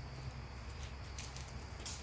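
A few faint footsteps on a concrete driveway, heard as short light taps, over a steady low hum.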